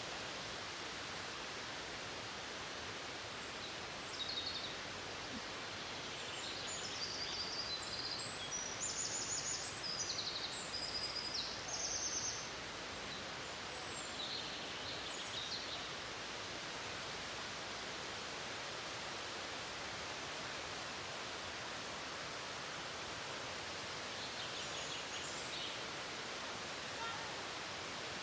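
Waterfall rushing steadily, with small birds chirping. A cluster of high, quick chirps and trills comes in the first half and a brief one near the end.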